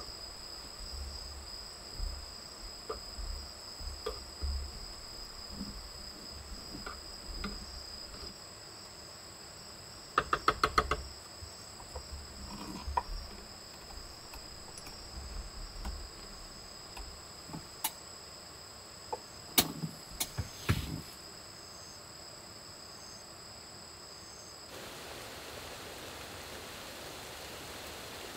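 Small clicks and taps of a utensil against a paper instant-noodle cup as it is eaten from. There is a quick run of rattling clicks about ten seconds in and a few sharper clicks around twenty seconds, over a steady high-pitched chirr of crickets. A few seconds before the end the chirr stops and a steady soft hiss of rain takes over.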